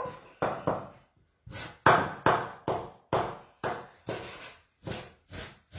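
Large chef's knife cutting raw beef into small pieces on a wooden cutting board: a quick series of knocks of the blade against the board, about two to three a second, with a short pause about a second in.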